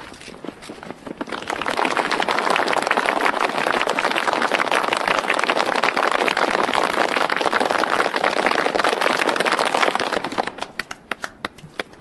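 A crowd clapping together. The applause builds about a second and a half in, holds steady, then stops abruptly on cue near the end, leaving a few stray, scattered claps.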